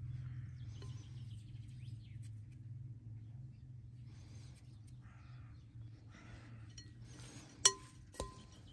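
Birds chirping over a steady low hum. Near the end, a metal spoon clinks twice against a glass mixing bowl as the filling is stirred.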